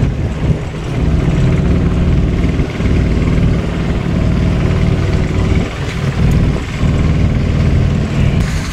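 Motorboat engine running steadily as the boat travels across choppy lake water, a continuous low hum.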